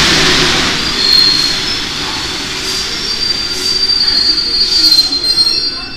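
Rubber-tyred Paris Métro Line 1 train slowing to a stop at the platform: first a rush of rolling noise, then from about a second in a high steady squeal that grows louder and dies away near the end as the train halts.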